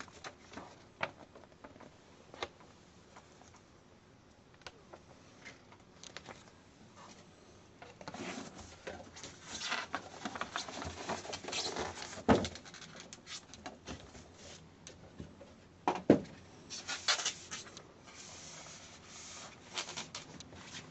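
Handling noises of a Casio AC-200 robot alarm clock: scattered small clicks and taps, a stretch of rubbing and scraping in the middle, and two sharper knocks, about twelve and sixteen seconds in.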